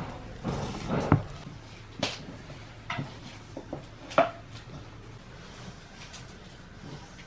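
Scattered knocks and clinks of cooking utensils and dishes, about six over the first few seconds, the loudest about a second in and about four seconds in.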